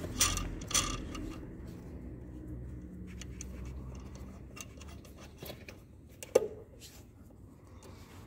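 A metal wrench clicking and scraping against the high-pressure fuel line nut on a Siemens diesel injector as the line is undone. There are two sharp clicks near the start and a louder metallic clack with a short ring about six seconds in.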